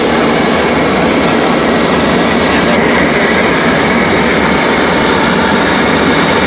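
Light aircraft's cabin noise in flight on the landing approach: a loud, steady drone of engine, propeller and rushing air.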